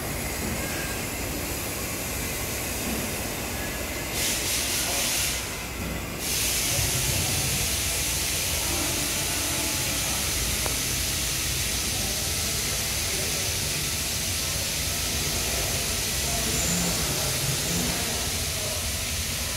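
Steady hissing noise over a low rumble, with a louder burst of hiss about four seconds in and the hiss growing louder again from about six seconds on.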